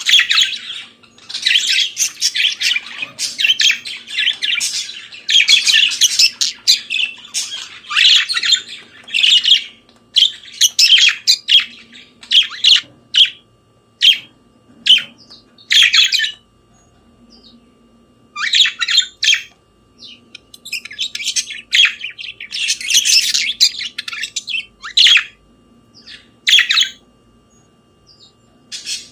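Budgerigars chattering and warbling, a fast run of high chirps, squawks and twitters in bouts, with short pauses between them. A faint steady hum runs underneath.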